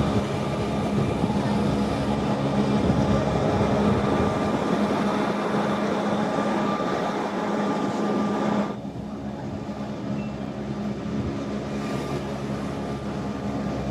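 Train running, a steady rumble with a held electric hum. About two-thirds of the way through, the sound drops suddenly and turns duller and quieter, then carries on.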